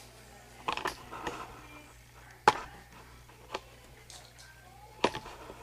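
Handling noise: a few sharp clicks and knocks, the loudest about two and a half seconds in, over a faint steady low hum.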